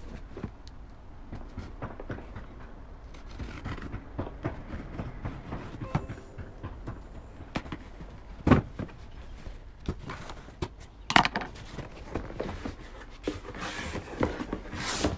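Cardboard shipping box being handled and opened: scattered knocks and scrapes, a sharp thump about eight and a half seconds in, and a rustling scrape of cardboard near the end.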